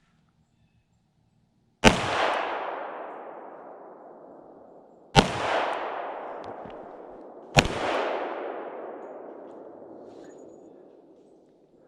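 Three shots from a Sig Sauer 10 mm handgun, about three and then two and a half seconds apart. Each shot echoes and fades over several seconds.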